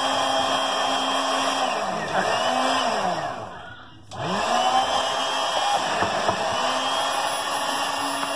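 Immersion stick blender running in a tall cup, emulsifying hollandaise sauce while melted butter is drizzled in. Its motor pitch sags twice, and it winds almost to a stop about four seconds in before starting up again and running steadily.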